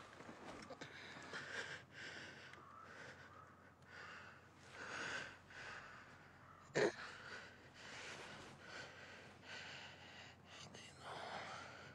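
A man's heavy, ragged breathing, a breath every second or two, with a sudden sharp gasp about seven seconds in.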